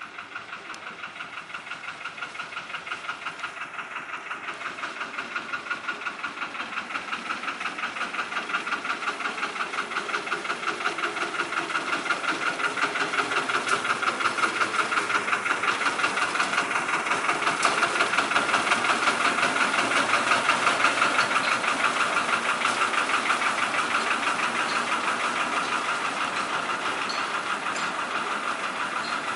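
Diesel engine of a 1932 Lister 0-4-0 diesel-mechanical narrow-gauge shunter, re-engined with a 20 hp Lister engine, chugging with an even pulsing beat as the loco moves slowly under load. It grows louder as the loco comes close, is loudest about two-thirds of the way through, then fades a little as it passes.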